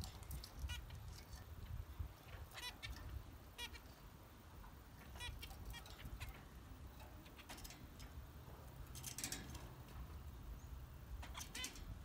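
Zebra finches giving short, nasal, honking calls, one or two at a time, with a quick cluster of calls about nine seconds in, over a low background rumble.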